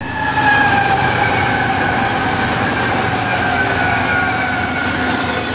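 A BNSF diesel-led freight train rolling past close by: a steady low rumble of engines and wheels with a high whine that slowly drops in pitch.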